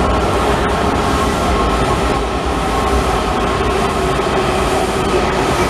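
Washington Metro subway train running past an underground station platform: a steady, loud rumble of wheels and running gear with a steady whine of several tones, heard in the vaulted concrete station.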